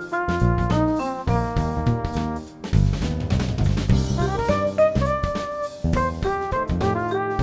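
Jazz-style instrumental music with a drum kit and pitched melody notes, briefly dropping away about two and a half seconds in.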